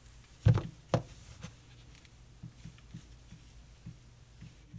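A deck of thick, glossy oracle cards being handled: two soft knocks about half a second apart near the start, then faint light clicks and rubbing as the cards are slid apart.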